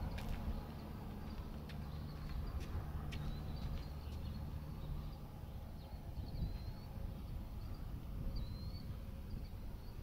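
Outdoor ambience: a low rumble of wind, a few sharp clicks in the first three seconds, and short, faint bird chirps in the second half.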